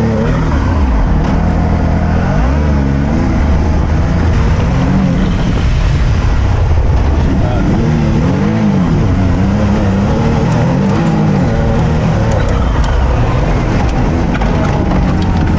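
Can-Am Maverick side-by-side's engine heard onboard, revving up and falling back again and again as it is driven hard over rough ground.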